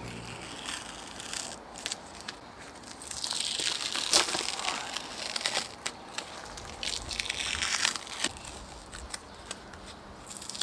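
Hand work on the wooden canoe: irregular swishing, scraping strokes with scattered clicks and knocks, typical of sanding or scraping old wood by hand.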